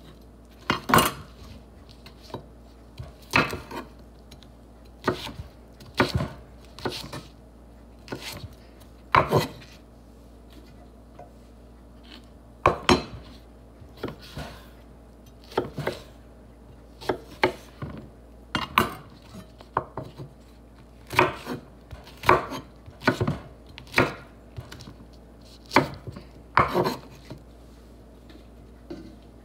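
Kitchen knife slicing a firm vegetable into rounds on a wooden cutting board: a series of single, sharp knocks of the blade on the board, irregularly spaced about one to two seconds apart, with a short pause about ten seconds in.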